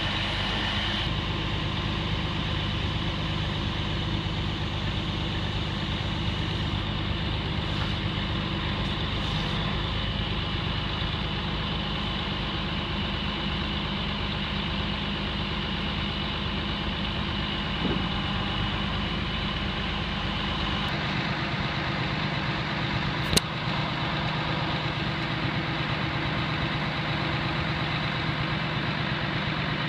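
Truck engine running steadily, powering the hydraulics of a Palfinger PK 24001 knuckle-boom crane as the boom is moved and folded in. About two-thirds of the way through, the low rumble drops away. A single sharp click follows a couple of seconds later.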